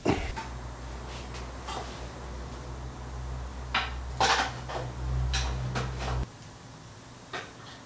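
Light knocks and clatters of parts being handled and fitted against an aircraft engine's cylinder baffling, a few scattered over the seconds and busiest just after four seconds in. Under them a low steady hum stops suddenly a little after six seconds in.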